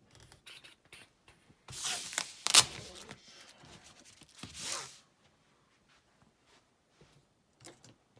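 Handling noise of small lockpicking tools being picked up and sorted: rustling with scattered clicks, loudest in two bursts in the first five seconds, with one sharp click about two and a half seconds in.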